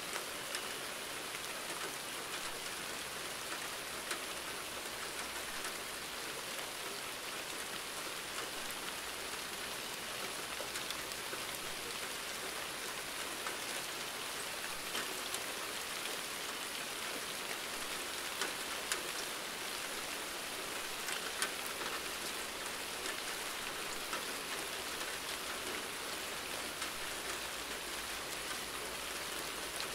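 Steady rainfall, an even hiss of rain with scattered sharper drop ticks landing on a surface.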